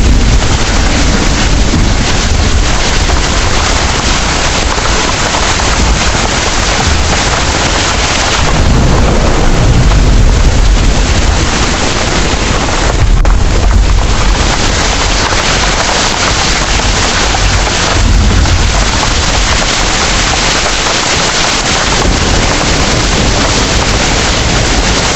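Heavy rain pouring steadily, with low rumbles of thunder swelling several times, the strongest about ten seconds in.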